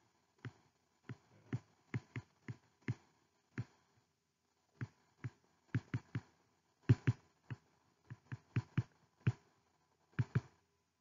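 Sharp, irregular taps of a stylus on a tablet screen while handwriting an equation, mostly two to four a second, with a pause of about a second a little before the middle.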